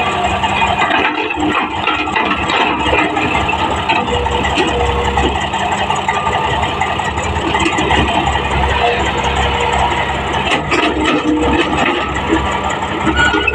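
Heavy earthmoving diesel engines, an excavator's and a bulldozer's, running steadily, with a few short knocks about three-quarters of the way through.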